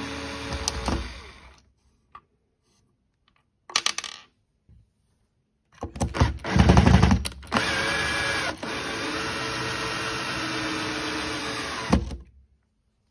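Cordless drill backing out a screw with a rubber band between the bit and the screw head, running until about one and a half seconds in. After a few clicks and a short burst near four seconds, the drill runs again on the next screw for about six seconds: loud grinding and chattering at first, then a steady motor whine that steps up in pitch for a moment, ending with a knock.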